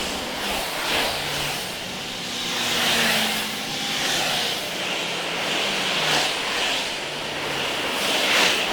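City road traffic: a steady wash of passing vehicles, with engine hum and tyre noise swelling and fading as they go by, louder just before the end.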